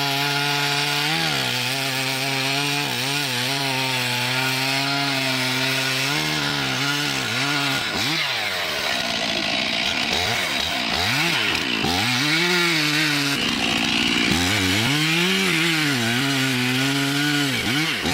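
Chainsaw engine running at high revs, holding a fairly steady pitch for the first several seconds. Then it dips and rises in pitch again and again as the chain cuts into wood.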